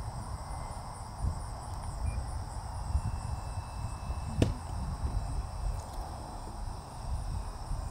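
Wind buffeting the microphone, with insects trilling steadily and high-pitched in the background. A single sharp click about four and a half seconds in.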